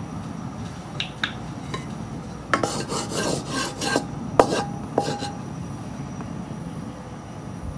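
Wooden spatula scraping across the bottom of a metal wok in several quick strokes, the wok ringing faintly, after two light taps about a second in. A steady low rumble runs underneath.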